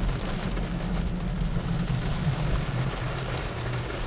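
Heavy rain beating on a car's roof and windshield, heard from inside the closed car, over a steady low rumble.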